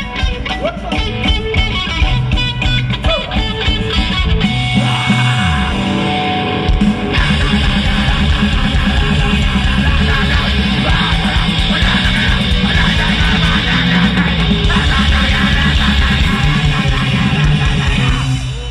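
Hardcore punk band playing live through a festival PA: distorted electric guitar, bass and fast drums. The sound thins out briefly about five seconds in, and the full band comes back in about two seconds later.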